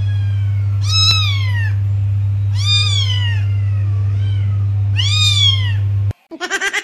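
Kitten meowing four times, high-pitched calls that rise and then fall, the third one fainter. A steady low hum runs under the calls and cuts off suddenly near the end.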